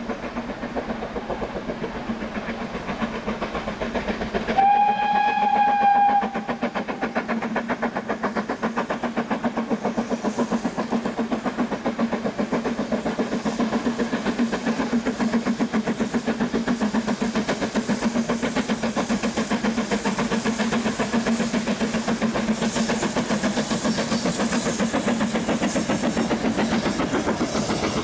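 BR Standard Class 9F steam locomotive working a goods train, its exhaust beating in a steady rhythm and getting louder as it approaches. It gives one whistle blast of about a second and a half, a little under five seconds in, the loudest sound.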